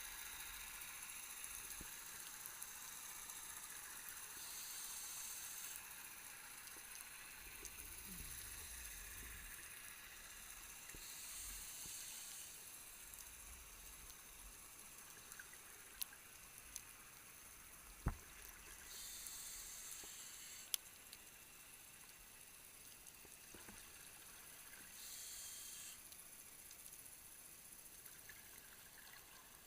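Scuba diver's regulator breathing heard underwater through the camera housing: a hiss that swells every 6 to 7 seconds, with a low rumble near the middle and a few sharp clicks.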